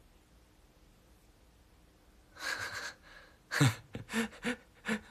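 A young man laughing, starting about halfway in: a breathy huff first, then a quick run of five or six short 'ha' bursts.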